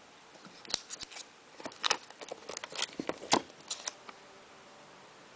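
Hands handling a new tablet and its packaging: a run of sharp clicks and crinkles that stops about four seconds in.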